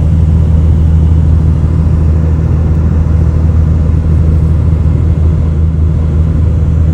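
Steady low drone of a vehicle driving on the road, heard inside the cab.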